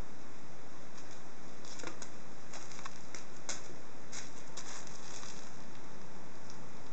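A pet's crinkle toy rustling with a crumpled-paper sound as it is played with: irregular crackles over a steady hiss.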